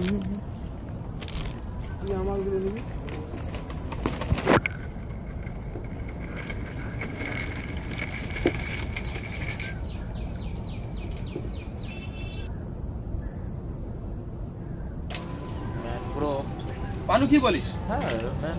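Insects shrilling steadily at a high pitch over a low hiss, with one sharp knock about four and a half seconds in.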